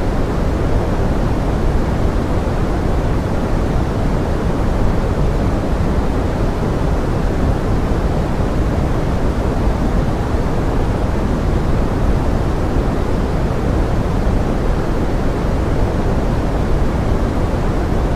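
Steady pink-noise forest rain: an even, unbroken rushing hiss weighted toward the low end, with no single drops or events standing out.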